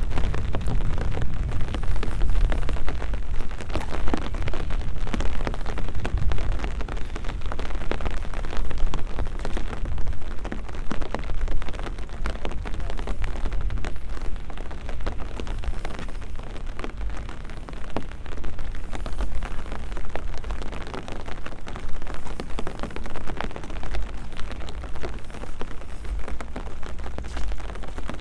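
Steady rain falling, a dense crackle of drops, over a low rumble that is strongest in the first few seconds.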